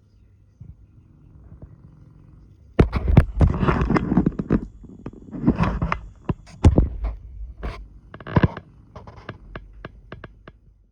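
Hand tools cutting and scraping at a hard plastic panel: after a faint start, about three seconds in come loud, irregular scrapes and cracks, ending in a run of separate short sharp clicks.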